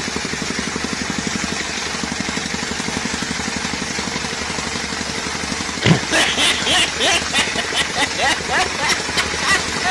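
Soil compactor (tamping rammer) running at full work, a rapid, even pounding as it tamps the ground. About six seconds in, a sharp knock and voices break in over the machine.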